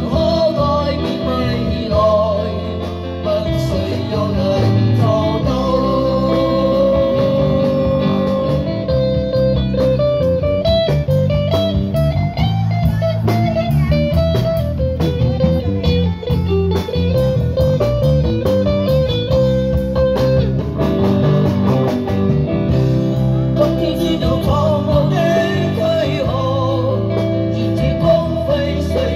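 Live street band playing a blues-rock song: electric guitar leading over bass and drums, with singing.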